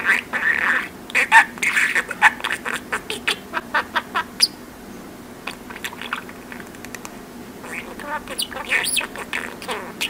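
Pet budgerigar chattering in quick chirps and squawks. It pauses for about three seconds partway through, then starts chattering again.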